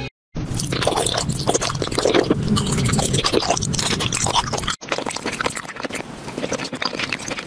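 Close-up crunching and chewing of candy, ASMR-style, a dense wet crackle; after a cut just before five seconds in it goes on quieter.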